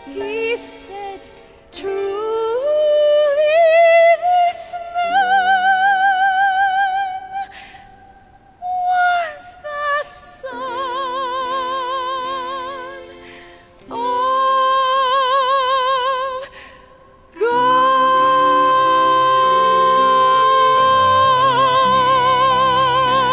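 A woman singing a slow solo song with wide vibrato over soft instrumental accompaniment, in several phrases with short breaks between them, ending on a long held note.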